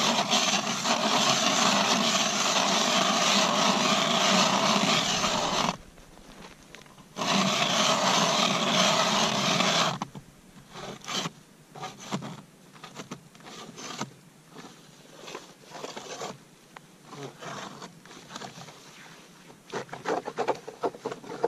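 Manual Mora ice auger being cranked by hand, its blades grinding through thick lake ice. Two long stretches of steady grinding, the first about six seconds and the second about three, break off into shorter, uneven scraping strokes for the rest of the time.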